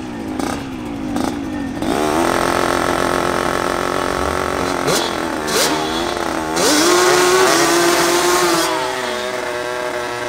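Two-stroke drag engines, a Yamaha RX 115 motorcycle and a Yamaha Banshee 350 quad, revving at the start line, the pitch swooping up and down in repeated blips. A little past the middle, one engine is held at high revs with a loud hiss for about two seconds, then the engines settle to a steadier note.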